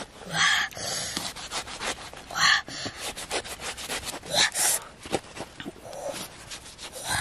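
Knife blade slicing and scraping through the fibrous flesh of a halved ripe jackfruit in a series of short rasping strokes, with small clicks between them; near the end, chewing.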